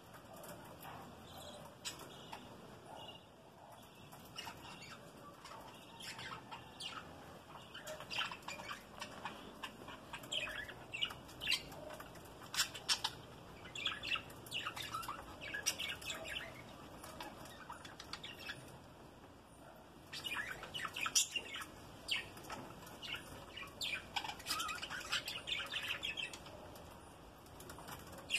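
A flock of budgerigars chattering, with a steady stream of short, quick chirps and warbles. The chatter swells into busier stretches in the middle and again near the end.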